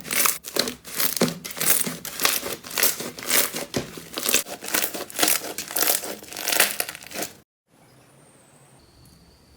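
Crunchy slime being squeezed and pressed by hand, giving a dense run of crackles and pops. It stops abruptly near the end, leaving only a faint hiss.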